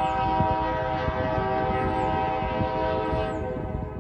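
Diesel locomotive air horn sounding one long steady blast of about four seconds, over the low rumble of the train.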